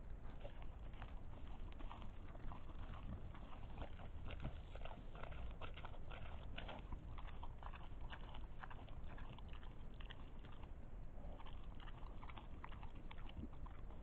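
Wild boars foraging close to the trail camera: an irregular run of crunching, crackling and rustling from rooting and chewing, over a low steady rumble.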